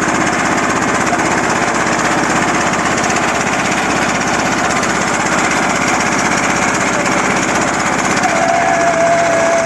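Small motor boat's engine running steadily with a hard, rapid chugging. Near the end a single held tone rises above it for about a second and a half.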